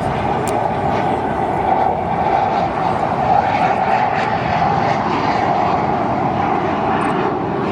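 Fixed-wing aircraft flying at an air show: loud, steady engine noise with no clear rise or fall.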